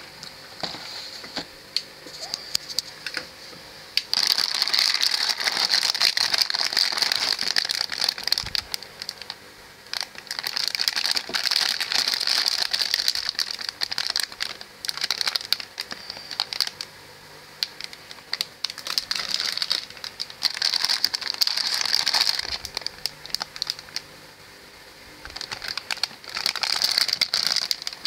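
Clear plastic bags holding plastic model-kit runners crinkling as they are handled and lifted out of the box, in several bursts a few seconds long with quieter rustling between.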